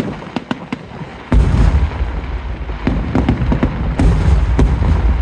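Aerial fireworks going off: fine crackling at first, then about a second in a heavy boom that runs on as a continuous low rumble of shell bursts, swelling again near the end.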